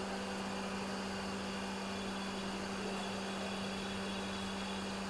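Steady low electrical hum with a constant even hiss and no separate knocks or clicks.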